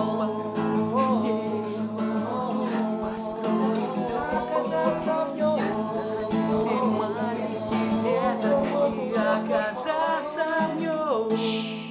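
Live acoustic guitar accompanying singing, a melody carried by voice over the guitar; the song stops near the end.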